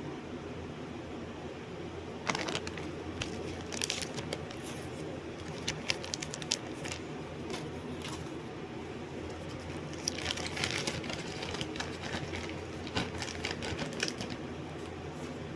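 Irregular light clicks and taps in two bursts, over a steady low hum.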